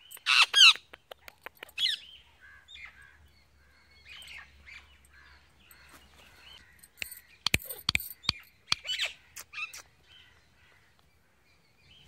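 Indian ringneck parakeets calling: a loud shrill squawk at the start, then soft chattering and chirps, with a cluster of sharp clicks and a few more squawks later on.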